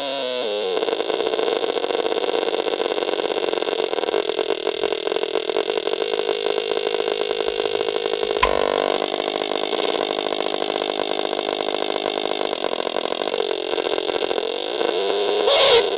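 Abstract electronic radio noise from the VAPESONIC RX 21: held high whistling tones over a rough buzzing hiss, a sharp click about halfway that shifts the tones to a new pitch, and a quick sweeping glide near the end.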